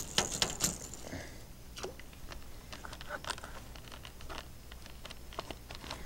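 Scattered light clicks and small metallic rattles from a Marine Sports Zeta 110 fish lip grip being handled while it holds a peacock bass to weigh it.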